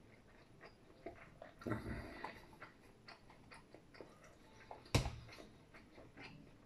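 Close-up eating sounds: chewing with small clicks of chopsticks on a plastic food container, a louder scraping stretch about two seconds in, and a sharp knock about five seconds in as the container is set down.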